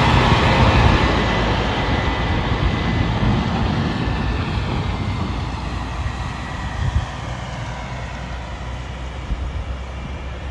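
MAN heavy-haul tractor truck pulling a multi-axle Goldhofer low-loader trailer past, its diesel engine running and many tyres rolling on the road, growing gradually fainter as it moves away.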